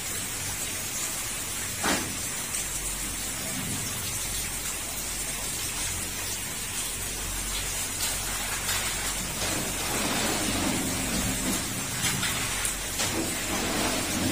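Steady rain hiss, with a single sharp knock about two seconds in.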